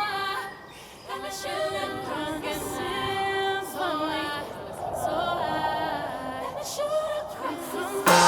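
Background music with a singing voice, likely a woman's.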